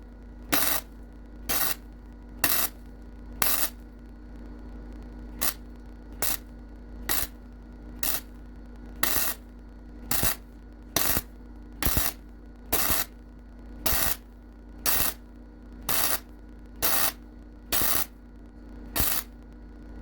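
Welder laying short pulsed bursts on a cracked subframe, about one a second, each crackling for well under half a second, with a steady hum underneath.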